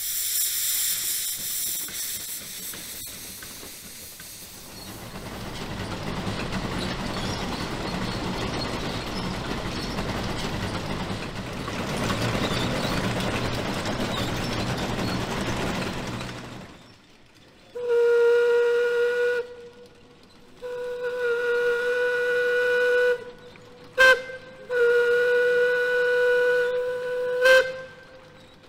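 Lombard Steam Log Hauler, a tracked steam tractor, blowing off steam with a loud hiss, then a heavy steady rush of steam as it runs. About two-thirds in, its steam whistle sounds in three long blasts with a brief toot between the second and third.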